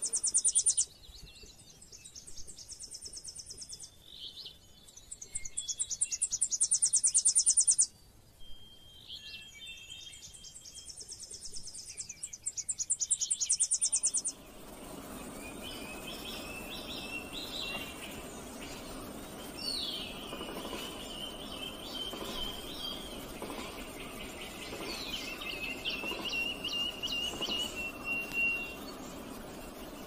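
High-pitched rapid rattling trills in four loud bouts. Then, after an abrupt change about fourteen seconds in, softer forest ambience with scattered whistled bird calls and short trills.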